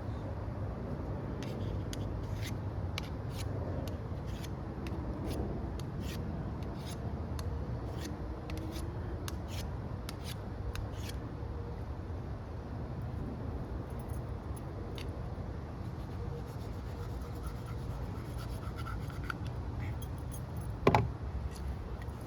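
Knife blade being stroked across a handheld sharpening stone: a run of short scraping ticks, thick in the first half and thinning out later, over a steady low hum. One sharper knock near the end.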